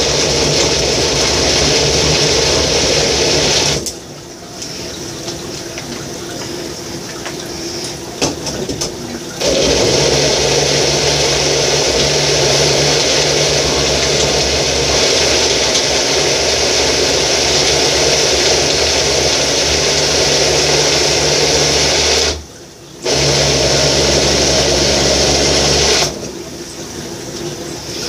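Single-serve bullet-style blender motor running in long bursts, switched on by pressing the cup down, grinding raw beef heart, seafood and vegetables into a paste. It stops about 4 s in, leaving a quieter stretch of several seconds, then runs again from about 9 s with a brief break near 22 s, and stops a couple of seconds before the end.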